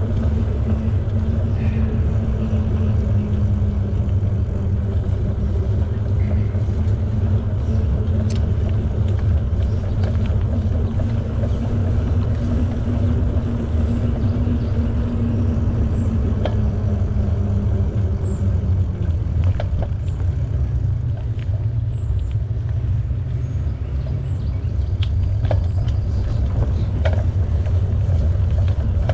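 Steady low rumble of wind on the microphone and tyre noise from a bicycle riding along a trail. A steady hum runs underneath and dies away about two-thirds of the way through, with a few faint ticks higher up.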